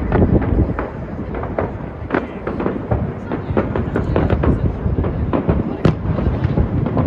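Fireworks exploding in a rapid, irregular barrage of bangs and crackles over a low rumble, with one sharper crack near the end.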